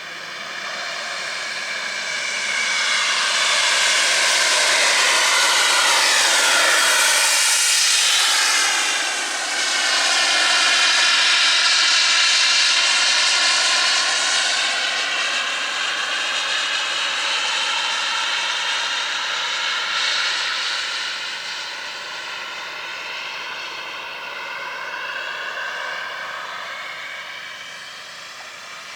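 Jetcat P100RX model jet turbine of an Avonds F15 scale RC jet flying by: the turbine's whoosh and whine swell up to their loudest, with a falling pitch sweep about eight seconds in as it passes, then stay loud for a while and slowly ease off.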